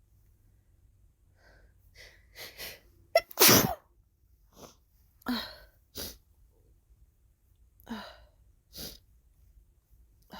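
A woman's sneeze build-up: a few quick catching breaths, then one loud sneeze about three and a half seconds in, followed by several shorter breathy sounds.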